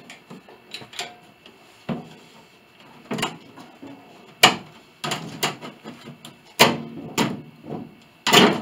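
Irregular wooden knocks and clunks from a grand piano's case as its hoisted plate and wedged-in pinblock are worked loose, about a dozen hits, the loudest about four and a half seconds in and near the end.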